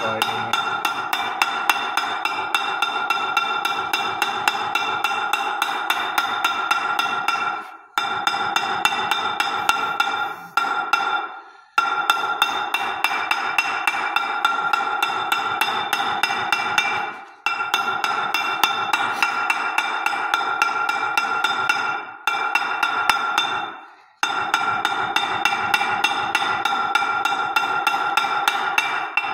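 Hammer blows on a steel punch, a few a second, driving a heated steel seal wear ring onto the hub of a MAN truck flywheel. The metal rings with each strike. The fit grows tighter as the ring cools, and the hammering stops briefly several times.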